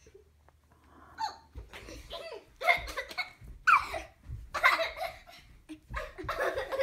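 Young children laughing in repeated bursts, starting about a second and a half in and carrying on after that.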